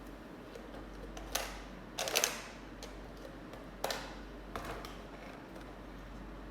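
Hands handling a boxed action figure and its plastic packaging: a few sharp clicks and short plastic crackles, the loudest cluster about two seconds in.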